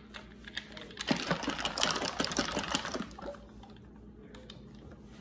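Ice cubes rattling and clinking against glass, a quick dense run of clatter lasting about two seconds from about a second in.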